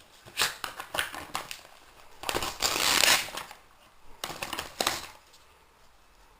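Crinkling and rustling in several short bursts, the longest and loudest about halfway through.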